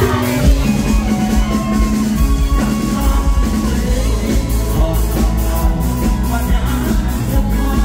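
Live Thai luk thung band playing loudly through a large PA: a singer over a steady, heavy drum beat and bass.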